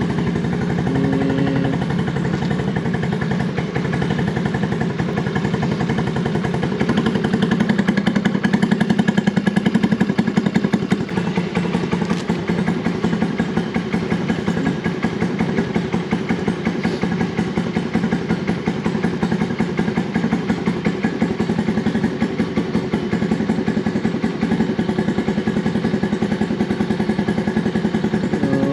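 Honda Navi's small single-cylinder four-stroke engine running steadily, its exhaust pulsing evenly. It gets a little louder for a few seconds about a third of the way in.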